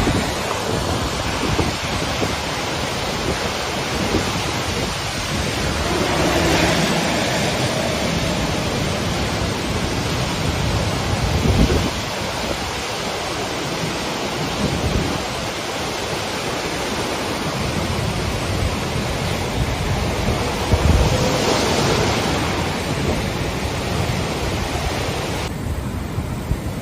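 Fast-moving floodwater rushing steadily, with wind buffeting the microphone in a few low thumps. The top of the hiss drops away abruptly near the end.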